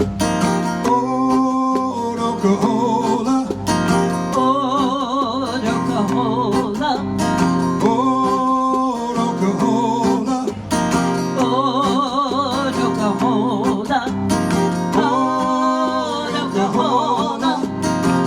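Live band playing a song intro: strummed acoustic guitar under a melody line that wavers with vibrato in several phrases.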